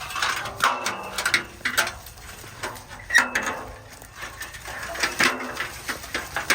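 Mandarin picking in a tree: a run of irregular sharp clicks and short rustles from picking shears snipping fruit and from leaves and branches being handled.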